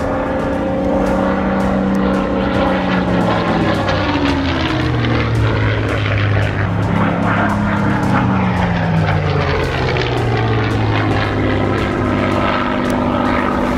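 Supermarine Spitfire Mk IX's Rolls-Royce Merlin V12 engine and propeller droning as the fighter flies past. The engine note falls in pitch about halfway through.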